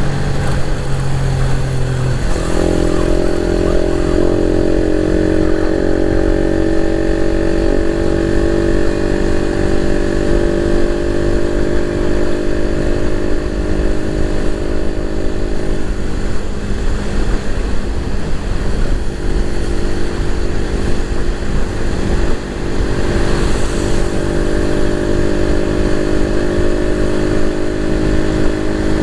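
Suzuki Raider 150 Fi's single-cylinder engine running loud and steady. The engine note jumps up in pitch about two seconds in, then holds. It dips briefly once, about three-quarters of the way through.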